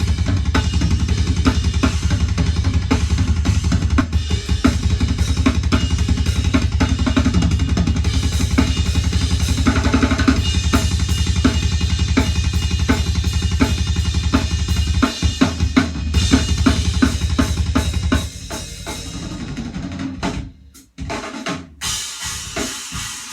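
Heavy metal drum kit: very fast double-bass kick drumming with snare and cymbals and a thick, booming low end. About three-quarters of the way through the fast kick stops, and the playing drops to quieter, sparser hits with brief gaps.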